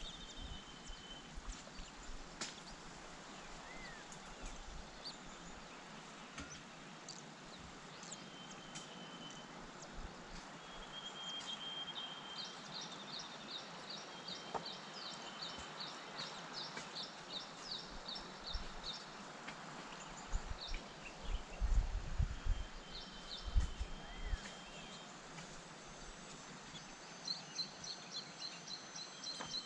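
High-pitched bird chirps over steady background noise: scattered short whistled notes, and twice a rapid run of short chirps, about five a second, one in the middle and one near the end. A few low thumps come about two thirds of the way through.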